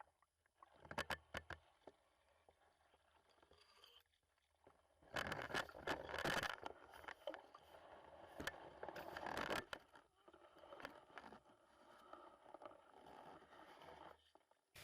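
Water splashing and sloshing in irregular bursts as a hooked carp is brought in with a landing net, after a few sharp clicks about a second in.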